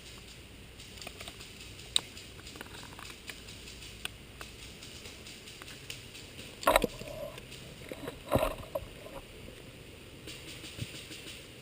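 Rustling and handling noise close to the microphone, with many small ticks and two loud sudden knocks about a second and a half apart, past the middle; the first is followed by a brief tone.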